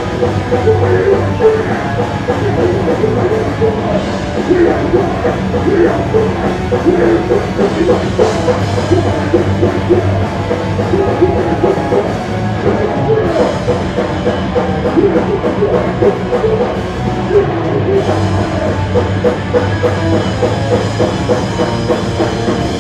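Live punk rock band playing loud, with electric guitar, bass and a drum kit, and the vocalist shouting into a microphone.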